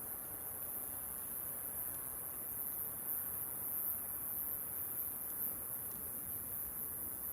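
Wood campfire burning with a low, steady rustle and a couple of faint crackling pops, about five and six seconds in. A constant high-pitched shrill sits over it.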